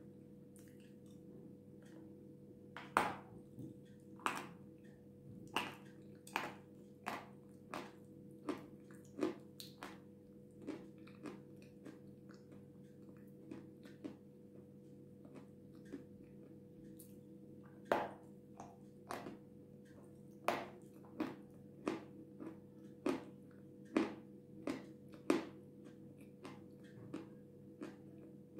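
Close-up crunching and chewing of dry, powdery white edible clay (Jasmin) as bites are taken and ground between the teeth. The sharp crunches come in two bursts of about a dozen each, with softer chewing between them.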